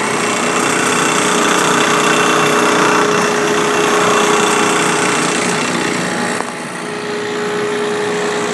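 A spray rig's small engine runs steadily under the hiss of water spraying from a handgun. The spraying stops about six and a half seconds in, and the engine keeps running.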